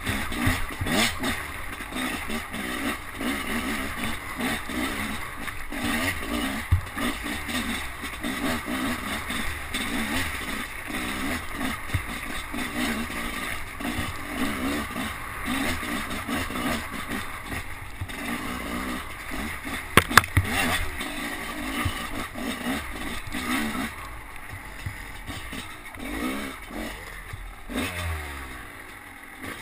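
Enduro dirt bike engine heard from on board, its revs rising and falling as it is ridden over a rough, muddy trail, with clatter and sharp knocks from the bike. About twenty seconds in there are a few loud knocks, and near the end the revs drop and then climb again.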